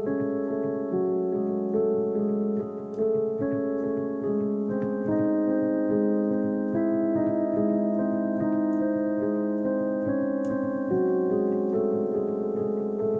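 Background piano music: slow, sustained chords whose notes change every second or so.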